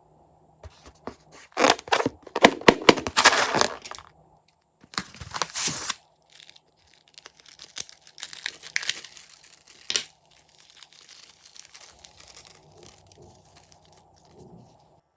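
Crackling and crunching as slime-making materials are squeezed and worked by hand. It comes in three loud bursts in the first two-thirds, then fades to softer rustling.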